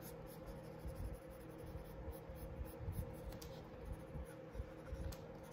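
Pencil sketching on paper: faint, irregular scratchy strokes as lines are drawn in.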